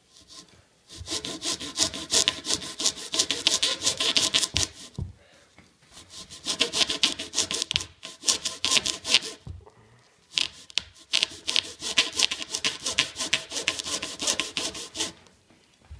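Small hand saw cutting into a Rawlings major league baseball, with quick back-and-forth rasping strokes. The sawing comes in three runs with short pauses between them.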